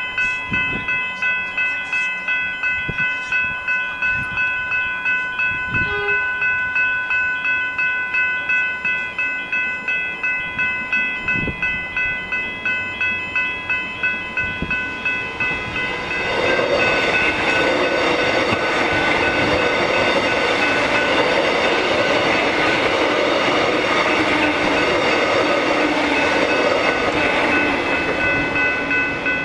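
Level-crossing electronic bells (General Signals Type 3 e-bells) ringing in a steady pulsing rhythm, a couple of strokes a second. About sixteen seconds in, an electric suburban train running express passes through the crossing: a loud rushing noise for about twelve seconds that swamps the bells, which keep ringing after it.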